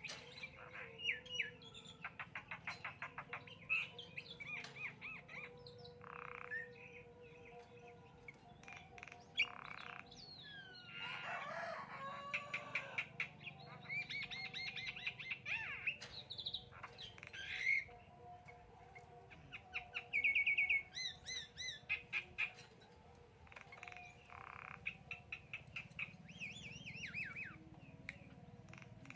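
Javan myna (jalak kebo) calling in a varied, chattering run: rising and falling whistles, quick rattling trains of clicks, and short harsh notes, with brief pauses between phrases.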